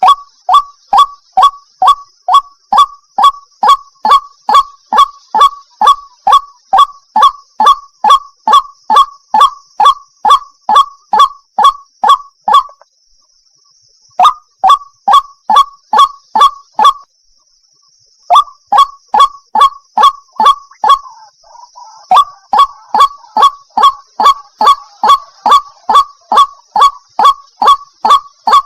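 White-breasted waterhen (ruak-ruak) calling in a fast, even series of sharp 'kru-ak' notes, about two a second, broken by two short pauses. The uploader presents it as a female calling to a male.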